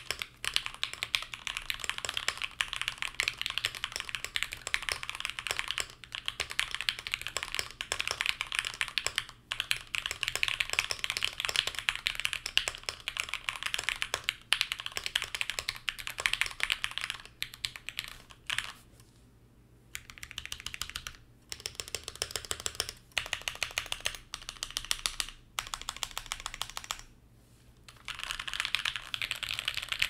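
Typing on a Gamakay K66 mechanical keyboard with lubed Gateron Red switches, PE foam and a tape mod, fitted with cherry-profile PBT keycaps: a dense run of clacky keystrokes. In the second half the typing breaks into short bursts with brief pauses between them.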